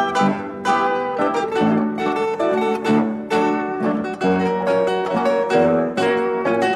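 Background music played on plucked strings, a continuous run of notes.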